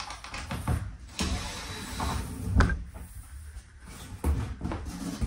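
A large wall panel being carried and handled: irregular scraping, flexing and knocks, the loudest knock about two and a half seconds in.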